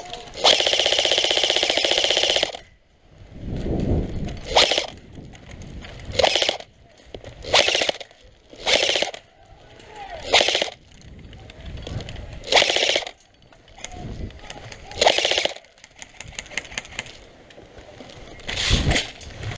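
Airsoft automatic electric gun firing on full auto: one long burst of about two seconds near the start, then about eight short bursts a second or two apart.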